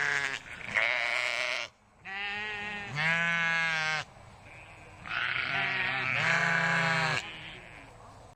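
Bleating from a sheep or goat: about six drawn-out bleats of roughly a second each, mostly in pairs with short gaps between them.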